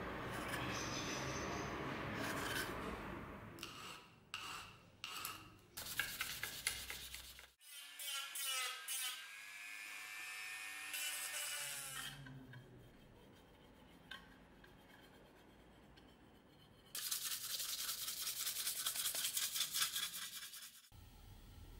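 Hand work on a small metal scabbard fitting held in a bench vise: assorted scraping and a few sharp knocks, then near the end about four seconds of fast, even back-and-forth rubbing strokes on the metal that stop suddenly.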